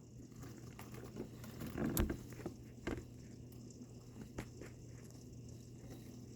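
Faint, scattered raindrops and drips ticking and pattering as a thunderstorm's rain dies down, over a low steady hum.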